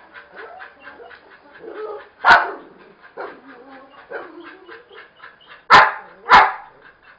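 Dog barking: three loud barks, one about two seconds in and two in quick succession near the end. Between them runs a quick string of faint short sounds, several a second.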